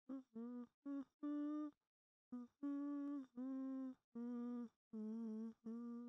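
A person humming a slow, soothing tune in short held notes, with a brief pause about two seconds in and a slight waver on one of the last notes.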